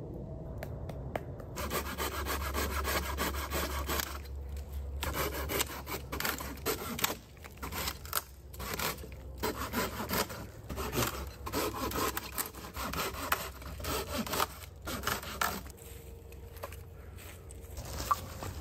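Hand saw cutting through a dead branch: a quick, steady run of back-and-forth strokes that starts a second or two in, breaks off briefly a few times, and stops about three seconds before the end.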